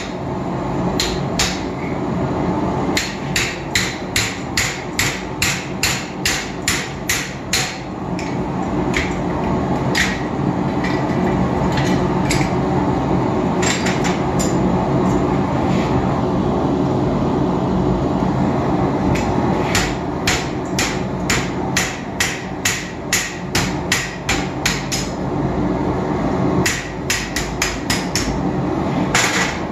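Blacksmith's hand hammer striking hot round steel on an anvil in quick runs of blows, about three a second, with short pauses between the runs. A steady drone sits underneath.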